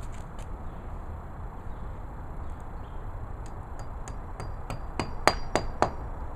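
Hammer tapping a plastic wall anchor into a drilled hole: a run of short, sharp taps about three a second, starting midway and loudest near the end, as the anchor is driven home.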